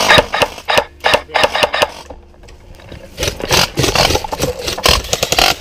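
Airsoft electric guns firing: irregular single shots and clicks, then a denser run of rapid shots from about three seconds in, mixed with knocks of kit as the player moves.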